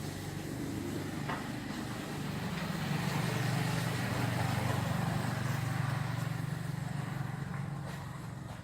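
A road vehicle going by: a low, steady engine rumble that grows louder through the middle and fades toward the end.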